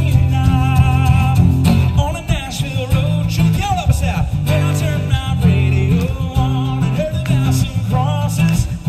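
Live band: a male lead vocalist singing a melody with vibrato over two strummed acoustic guitars and a steady low end.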